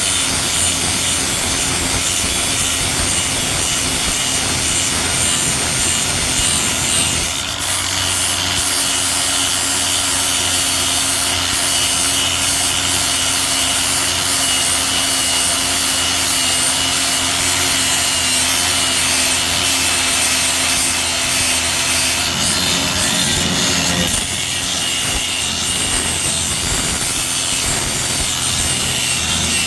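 Grinder grinding down welds on a steel patch panel: a steady whine with grinding noise. Its sound shifts slightly about seven seconds in and again near the end as the load changes.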